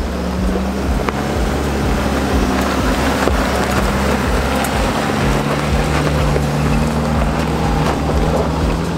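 A 4WD ute's engine running steadily at low speed as it crawls down a steep, loose shale track, with wind buffeting the microphone. Its steady hum drops a little in pitch about halfway through.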